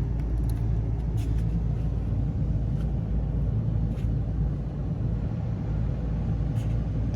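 Steady low mechanical rumble and hum, with a few faint light clicks about one, three and four seconds in and near the end.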